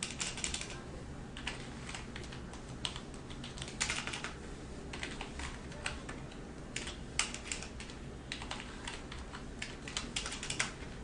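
Typing on a computer keyboard: irregular runs of keystrokes with short pauses, over a faint low steady hum.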